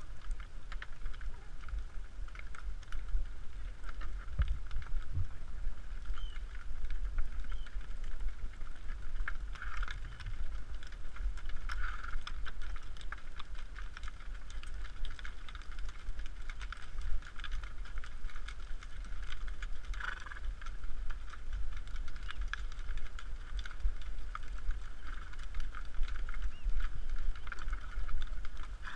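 Hooves of a group of Icelandic horses moving over sand, a dense, uneven run of small clicks and knocks, over a steady low rumble of wind on the rider's microphone.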